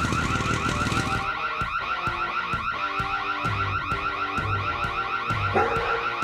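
Electronic alarm siren sounding a fast, repeating warble, with background music coming in about a second in.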